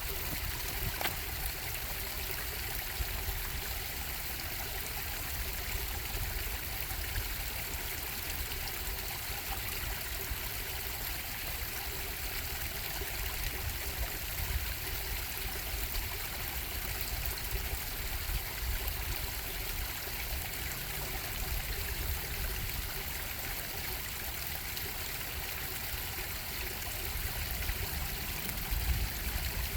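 Stream of water bubbling and rushing steadily over rocks, with a low rumble underneath.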